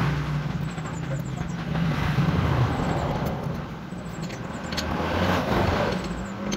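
Background road traffic noise, swelling and fading, with a few faint metallic clicks from a wrench turning the bolt on a motorcycle's engine sprocket.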